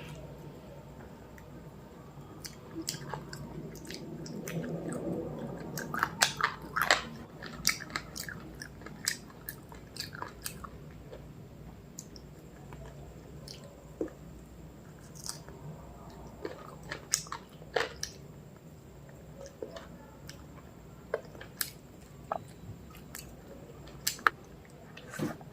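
A person chewing and biting food close to the microphone, with irregular sharp crunches and mouth clicks, louder and denser about six to seven seconds in.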